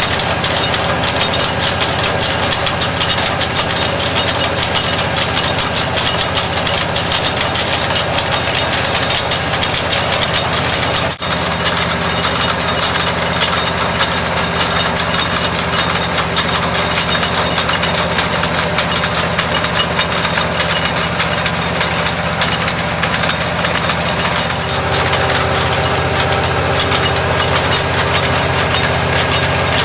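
Engine of a trailer-mounted water well drilling rig running steadily at working speed, a loud, continuous mechanical drone with a fast rattle.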